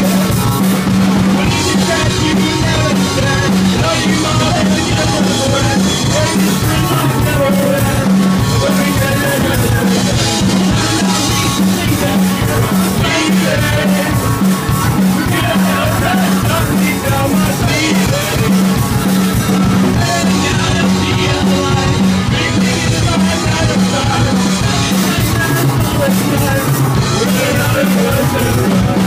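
A live rock band playing loudly: drum kit, bass and guitar keeping a steady beat.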